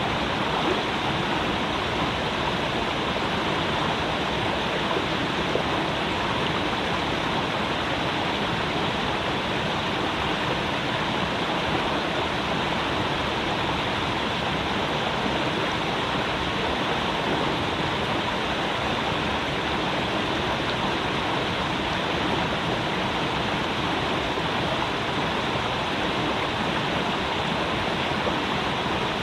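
Creek water flowing over rocks, a steady, unbroken rush.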